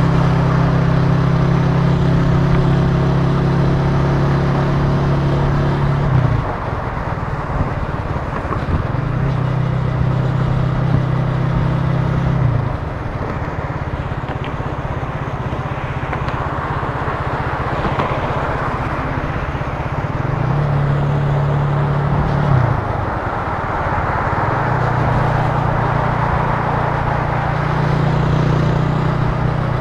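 Italika TC300 motorcycle engine riding in traffic, holding a steady note that falls away three times as the throttle is eased, then picks up again, under constant wind and road rush.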